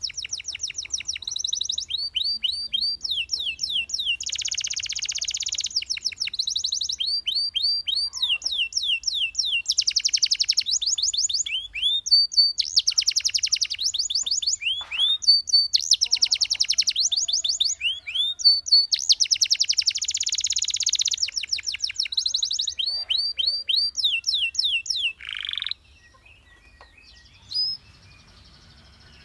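Canary singing a long song of trills: runs of rapid repeated notes and quick falling whistles, changing from one run to the next. It stops near the end, leaving only a couple of faint chirps.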